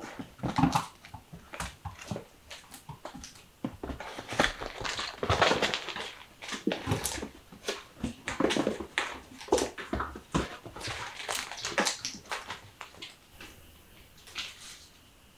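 Kittens playing in a wicker basket: an irregular run of scratching, rustling and light knocking from claws and paws on wicker and leather.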